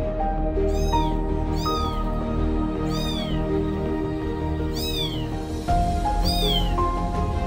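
A kitten mewing: about five short, high-pitched calls that rise and fall, at uneven intervals, over background music with held notes.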